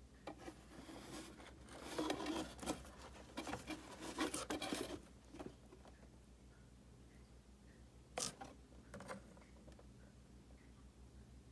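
Hands handling packaging: a stretch of rustling and scraping from about 1.5 to 5 seconds in, then two sharp knocks about a second apart near the end.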